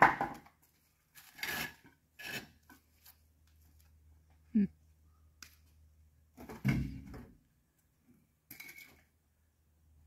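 Irregular metal clanks, knocks and scrapes from a stripped demolition-derby car body being worked onto a wheeled frame. A faint steady low hum runs beneath them.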